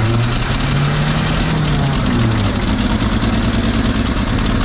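1955 Chevrolet 6100 truck's inline-six engine running on fuel poured by hand from a bottle into the carburetor, its speed rising and falling, then holding steadier. It runs only on this hand-fed fuel because a fuel clog somewhere in the line is keeping the carburetor dry.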